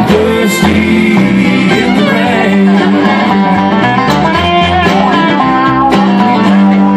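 Bluegrass band playing live without vocals: acoustic guitar, banjo, fiddle, dobro and upright bass, with a steady bass pulse under the picking.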